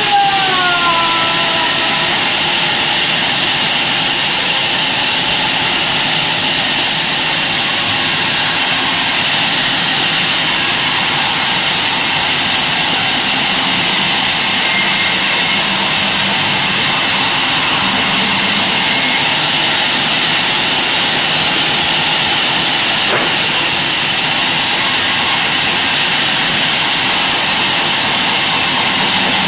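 Large vertical band saw running and ripping lengthwise through a thick timber slab: a loud, steady noise of blade and motor that does not let up.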